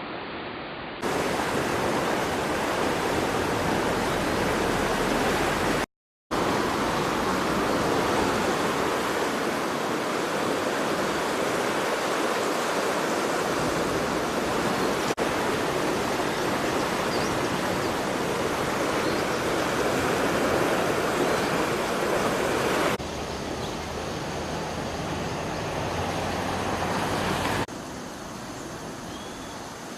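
Floodwater rushing through the open sluice gates of a river weir, a loud steady rush. It drops out briefly about six seconds in and is quieter near the end.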